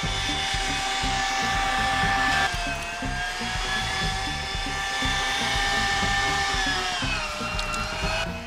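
Electric meat grinder whining steadily as veal and pork fat are minced through the coarse plate; its pitch sags about two and a half seconds in and again near the end, then recovers. Background music with a beat underneath.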